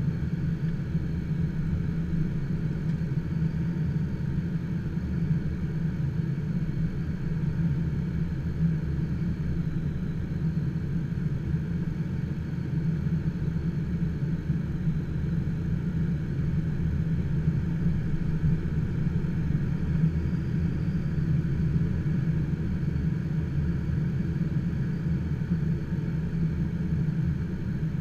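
Steady rush of airflow in the cockpit of an HK36 Dimona motorglider gliding with its engine shut down and propeller stopped; a low, even noise with no changes.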